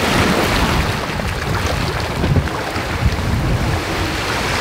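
Water rushing and churning past the hull of a sailing catamaran under way, with wind buffeting the microphone.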